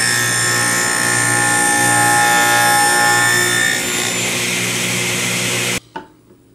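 Table saw running and cutting through a small wooden box piece, a steady whine with a higher tone while the blade is in the wood. It cuts off suddenly near the end, leaving only faint sounds.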